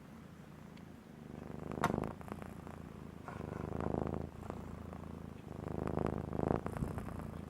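Domestic cat purring, the purr swelling and fading in about three long waves with its breaths.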